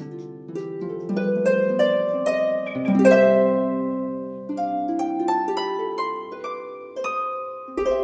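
Background music: a gentle plucked-string melody, one note after another ringing and fading, often several at once.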